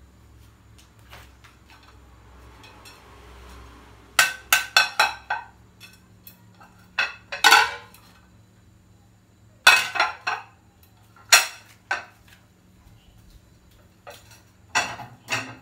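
Ceramic plates clinking and knocking against each other as they are slotted into a plastic dish rack. The knocks come in short clusters, starting about four seconds in and recurring four more times.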